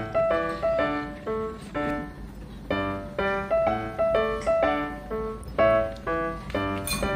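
Background music: a light piano tune of short notes in a steady rhythm, with a brief gap about two seconds in.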